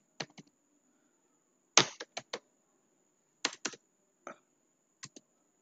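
Computer keyboard keys clicking as a word is typed: about a dozen separate keystrokes in irregular little clusters with pauses between, the loudest about two seconds in.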